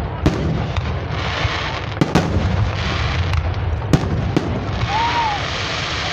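Aerial fireworks shells bursting overhead: about six sharp bangs at irregular intervals, with crackling hiss from the bursting stars between them over a steady low rumble. A short whistle-like tone rises and falls about five seconds in.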